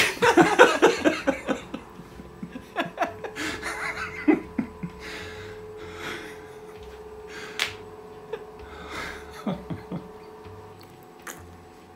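Laughter, loud for the first two seconds, then trailing off into quieter, breathy bursts of laughing.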